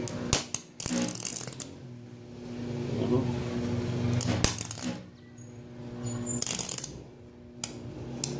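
Arc welder striking short arcs with aluminium flux-cored ER5356 wire set at 120 amps: three brief bursts of arc noise, each under a second and a couple of seconds apart, over the welder's steady hum. The wire barely welds the aluminium, so the arc does not hold.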